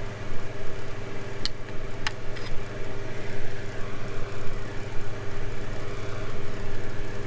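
Steady mechanical hum with a constant low tone, with two light clicks about a second and a half and two seconds in.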